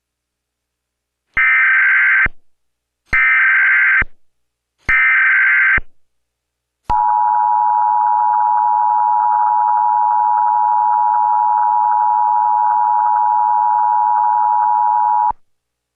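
Emergency Alert System tones: three short bursts of SAME header data, each just under a second long and spaced under two seconds apart, then the two-tone EAS attention signal (853 and 960 Hz sounded together) held steady for about eight seconds before cutting off abruptly.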